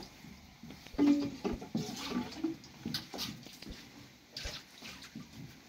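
Thin wooden rolling pins and hands working flatbread dough on a floured cloth: irregular taps, knocks and pats as the dough is rolled out and slapped.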